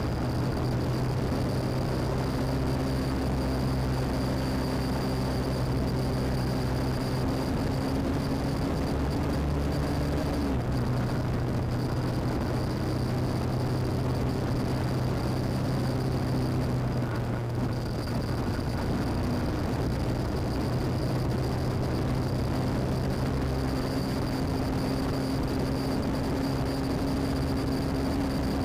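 BMW R1150GS Adventure's air-cooled boxer twin running at a steady cruise on gravel, over a wash of tyre and wind noise. The engine note changes about ten seconds in and dips briefly a little later. A faint steady high whine sits above it all.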